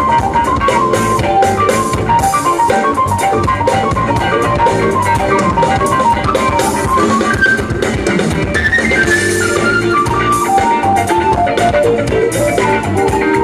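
Live band playing an instrumental passage: electric guitar, keyboards and drum kit keep a steady beat under a quick lead line of single notes, which climbs higher about eight seconds in and then steps back down.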